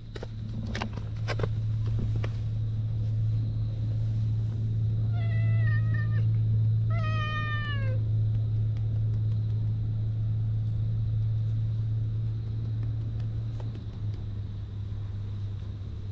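A cat meowing twice, about five and seven seconds in, the second call dropping in pitch at the end, over a steady low rumble.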